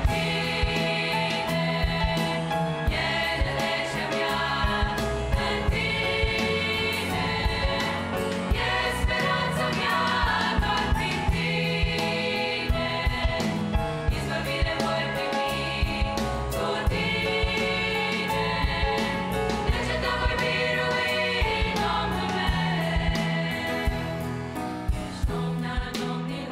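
Girls' choir singing a Romanian hymn in several parts, with grand piano accompaniment and a steady beat.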